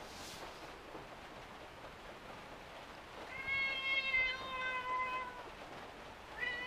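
Long-haired tortoiseshell cat meowing: one long, drawn-out meow starting about halfway through, and a second starting near the end.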